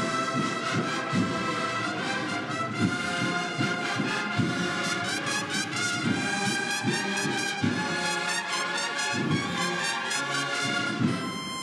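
Cornet-and-drum processional band playing a Holy Week march: massed brass in sustained chords over repeated drum beats.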